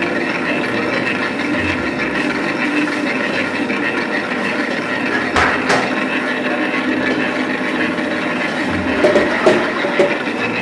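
Stand mixer motor running steadily, with a few knocks and clicks about halfway and a small cluster of them near the end.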